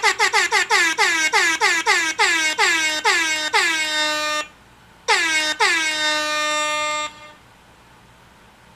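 Air horn blasted in a rapid string of short honks, about four or five a second, each dipping in pitch as it starts. After a brief stop about four and a half seconds in come two more blasts, the last held about a second and a half.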